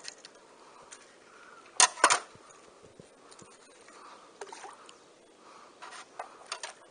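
Sharp clicks and knocks, the loudest pair about two seconds in, from landing and handling a hooked black bass and fishing tackle.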